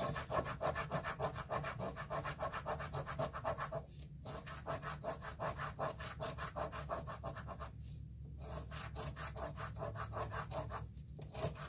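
A coin scraping the scratch-off coating of a lottery ticket on a wooden desk, in rapid back-and-forth strokes. It stops briefly about 4, 8 and 11 seconds in.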